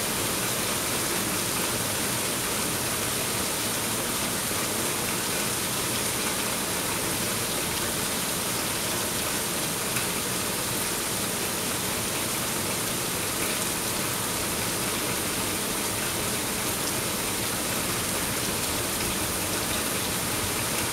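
Torrential rain falling steadily on pine trees, foliage and a dirt road: an even, unbroken hiss of rain.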